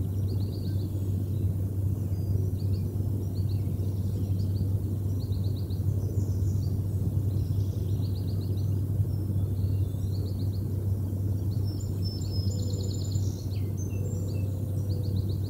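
Songbirds singing short, quickly repeated trills every second or two, with higher calls near the end, over a loud, steady low rumble.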